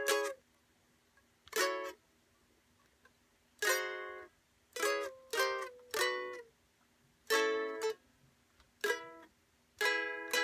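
Beginner's ukulele chords strummed one at a time, about nine in all, each ringing and fading before a long pause. The halting pace comes from the player struggling to move between chord shapes.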